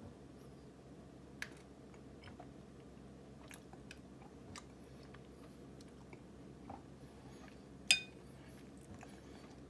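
Soft, wet chewing and lip-smacking of someone eating a thawed frozen ripe persimmon, with scattered light clicks. About eight seconds in comes the loudest sound, a sharp clink of a metal spoon against the ceramic bowl with a brief ring.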